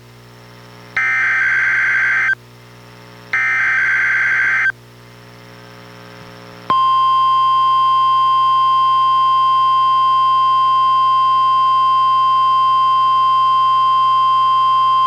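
NOAA Weather Radio required weekly test played through a weather radio's speaker: two short bursts of SAME digital header data about a second apart. About seven seconds in comes the 1050 Hz warning alarm tone, one steady unbroken high tone.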